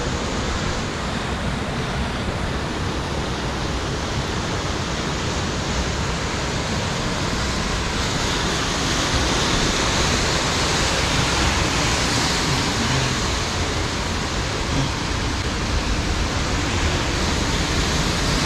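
Steady wash of ocean surf breaking on rocks below the sea cliffs, swelling slightly about halfway through.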